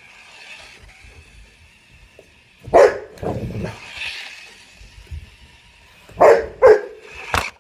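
A large dog barking in excited play at a toy car: a couple of sharp barks about three seconds in, then a quick burst of barks near the end.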